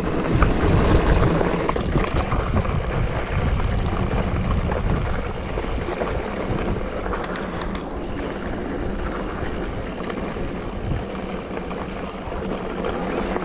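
Mountain bike riding down a dry dirt trail: steady rumble of the tyres over the loose dirt, with wind buffeting the microphone and a few brief knocks a little after seven seconds in.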